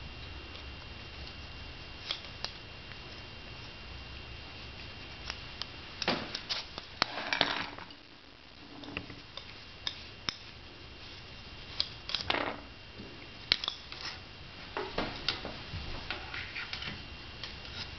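Wooden sticks clicking and knocking against each other and the frame's bar as they are slid out of a sprang warp, with a few short scraping slides; the clicks come irregularly, a few seconds apart.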